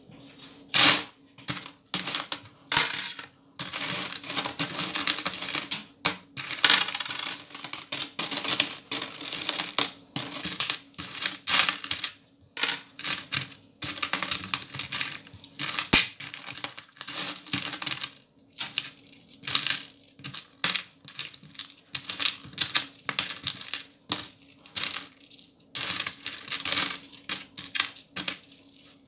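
A heap of small coins being picked through and counted by hand: coins clinking and dropping against one another in a continuous, irregular run of clicks.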